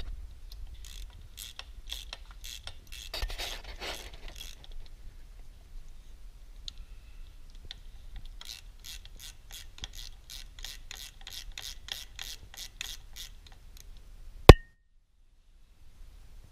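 3/8-inch drive ratchet wrench clicking as it backs the bolts out of a pump's pressure regulator. There are two runs of steady clicks, about three a second, then one loud sharp click near the end.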